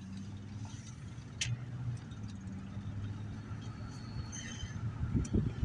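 Steady engine and road drone heard inside a moving truck's cab, with a sharp click about a second and a half in and some low thumping near the end.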